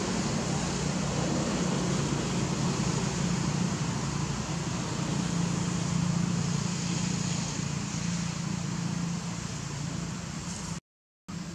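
Steady background rumble with a low hum, like distant traffic or wind, unbroken until it drops out to silence for a split second near the end.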